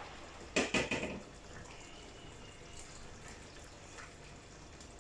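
Pot of bottle gourd and fish stew simmering with a low bubbling. A short clatter of a wooden spoon stirring in the metal pot comes about half a second in.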